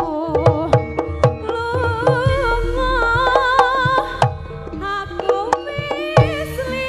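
Javanese Jaranan gamelan music: a kendang hand drum plays busy sharp strokes and low tones that swoop in pitch, under a wavering melody line with vibrato.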